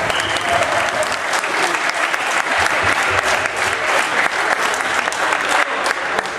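A small crowd applauding a goal, a dense patter of individual hand claps that goes on steadily.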